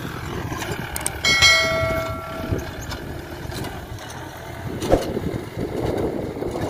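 Yanmar YM 557 tractor's diesel engine running steadily under load while disc ploughing. About a second in, a bell-like chime rings for about a second, and a sharp click comes later.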